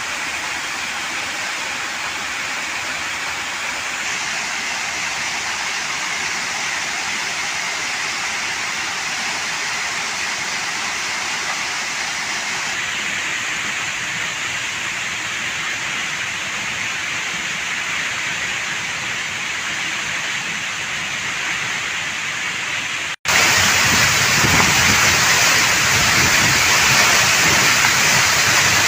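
Waterfall water rushing in a steady roar. About 23 seconds in there is an abrupt cut, after which the rush is louder and deeper.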